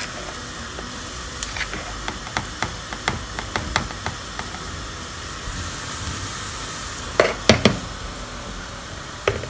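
Metal spoon scraping and tapping inside a plastic spice jar of turmeric powder, a run of light clicks, then a few louder knocks near the end as the jars are moved and set down on the counter, over a steady hiss.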